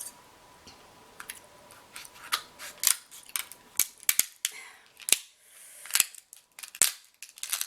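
Kitchen scissors cutting through king crab leg shell: a string of sharp, irregular snips and cracks.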